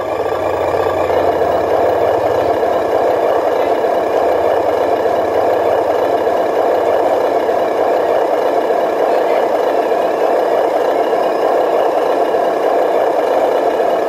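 Remote-control 12-wheel dump truck running, a steady drone that holds at one pitch.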